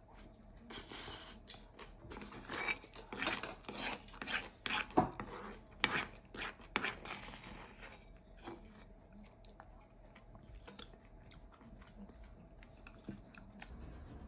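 Wooden spoon scraping leftover curry and rice from the bottom of a bowl: a quick series of rasping strokes over several seconds, thinning out after about eight seconds.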